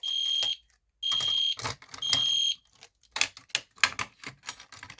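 Edwards (EST) Genesis fire alarm horn sounding three half-second high-pitched blasts about half a second apart, the temporal-three evacuation pattern, then stopping. A run of small sharp clicks and rattles follows.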